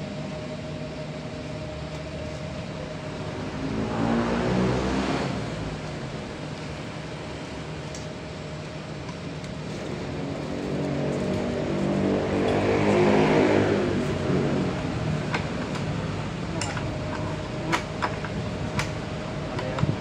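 A motor vehicle's engine swells and fades as it passes, twice: a short pass about four seconds in and a longer one peaking around thirteen seconds, over a steady faint hum. A few sharp clicks come near the end.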